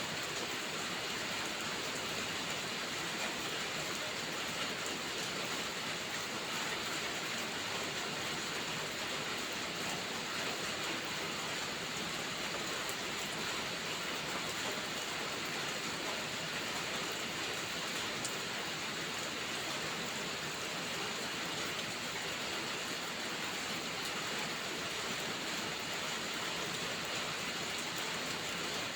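Steady rainfall: an even hiss of rain with a few faint ticks here and there.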